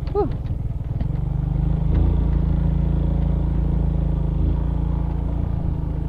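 Suzuki Smash Revo single-cylinder four-stroke motorcycle engine running as it rides over a rough, rocky dirt track, with rattling clatter during the first second. A brief rising-and-falling tone sounds right at the start.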